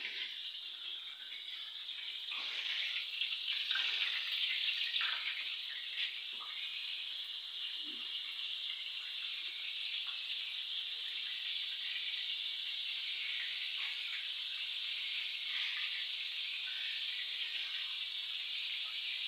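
Coated chicken pieces deep-frying in hot oil: a steady sizzle that starts suddenly, is loudest a few seconds in, then settles to an even hiss.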